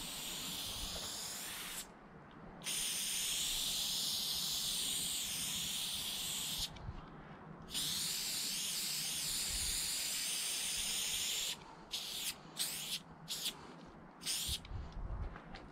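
Aerosol spray paint can spraying in three long hisses, two of them about four seconds each, then about five short bursts in quick succession near the end.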